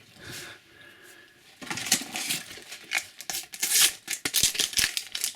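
Panini sticker packet and stickers being handled: quick rustling, crinkling and flicking of paper and foil that starts about a second and a half in and keeps going.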